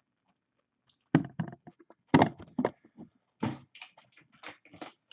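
About ten irregular clicks and knocks from a computer keyboard and mouse, starting about a second in, the loudest near the start.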